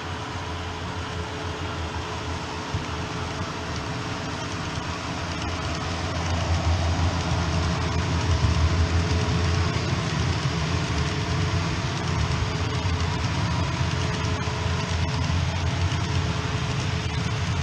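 OO gauge model freight train of container wagons running along the layout's track: a steady low rumble of wheels on rail, growing louder about six seconds in as the train comes close.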